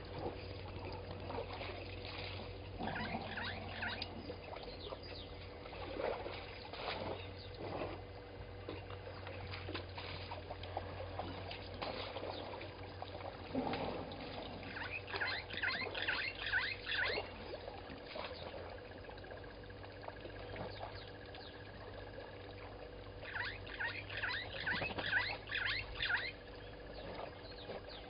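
A bird calling in three runs of short, quick notes that each slide downward, about three notes a second: a short run about three seconds in, then longer runs in the middle and near the end. A steady hum and scattered ticks and rustles lie underneath.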